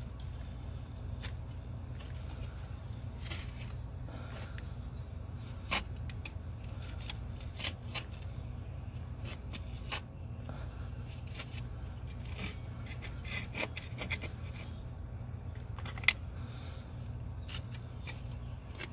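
Rubbing and scattered light clicks of hand and phone handling over a steady low hum.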